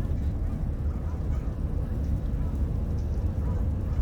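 Steady low road rumble inside a moving car's cabin, with faint brief higher-pitched sounds scattered over it.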